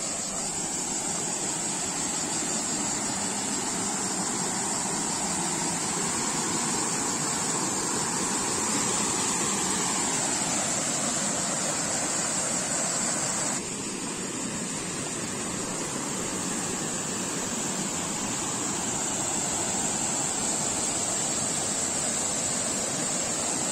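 Shallow river rushing over small rock cascades: a steady, even rush of water, with a steady high insect buzz above it. The sound changes abruptly and drops a little about fourteen seconds in.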